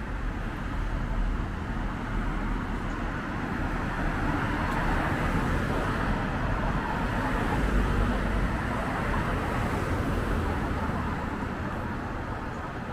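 Road traffic noise: a car passes, its tyre and engine noise swelling over several seconds and fading again near the end.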